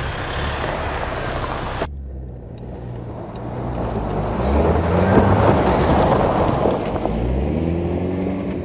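2024 Toyota Tacoma TRD Off-Road pickup driven hard on a dirt track: the engine runs under load and the tyres churn loose dirt as the truck comes close and passes, loudest about midway. Near the end the engine revs climb.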